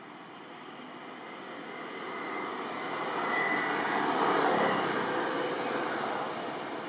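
A vehicle passing by: a steady rushing noise that grows louder to a peak about four seconds in and then fades away.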